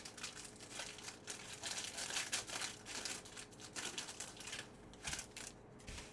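Crinkling of a foil trading-card pack wrapper being opened and handled, an irregular papery rustle that goes on for about five seconds.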